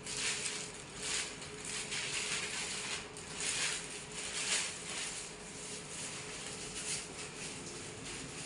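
Hands rubbing together in repeated strokes during six-step hand hygiene, giving a run of short rustling hisses, with a faint steady hum underneath.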